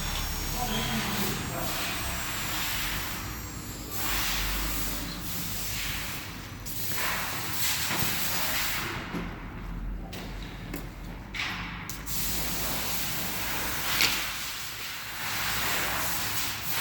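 4x4 CNC router running, a steady hissing noise that rises and falls in sections of a few seconds, with one sharp click late on.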